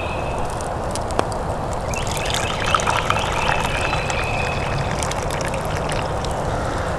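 Brewed coffee poured from a stainless steel cup through its press into a wooden kuksa, a steady trickle of liquid into the wooden cup.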